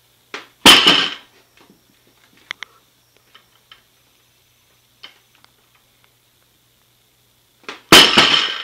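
Barbell loaded to 135 lb coming down onto the floor twice between snatch pull reps, about seven seconds apart, each a heavy thud with a short rattle of the plates. Faint clicks and knocks of handling the bar in between.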